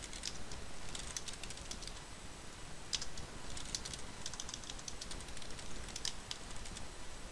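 Typing on a computer keyboard: faint keystroke clicks in short, irregular runs.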